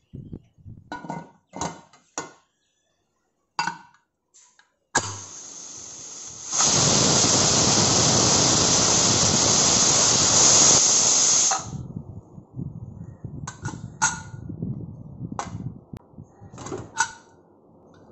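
Aluminium stovetop pressure cooker whistling: steam blows out under the whistle weight as a loud, steady hiss for about five seconds, then cuts off suddenly. This is the sign that the cooker has reached pressure, one of the three whistles the rice and dal are cooked for. Short metal clinks and knocks come before and after it.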